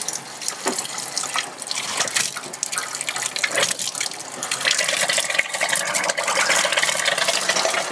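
Water rushing through newly installed plumbing into a water heater as the tank fills, a hissing, crackling flow that grows louder about halfway through.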